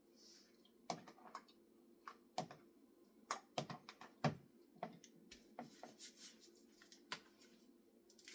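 Irregular light clicks and taps of utensils and dishes as a cod fillet is dipped and coated in egg and Parmesan, over a faint steady hum.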